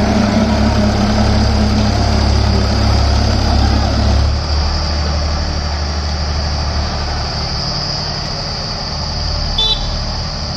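Two farm tractors, a Powertrac Euro 50 and a Massey Ferguson 7250, running hard with their diesel engines under load in a tug-of-war pull. The engine drone is strongest at first and drops off about four seconds in. A brief high beep sounds near the end.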